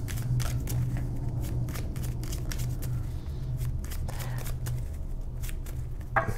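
A deck of tarot cards being shuffled by hand: an irregular run of light card clicks and flicks, several a second, over a low steady hum.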